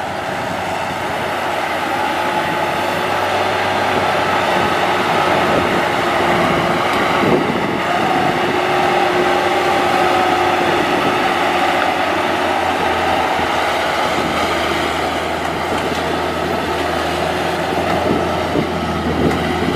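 Maxxi HD NDR 85 rice combine harvester running steadily as it drives across the stubble: an even engine-and-machinery drone with a steady whine on top.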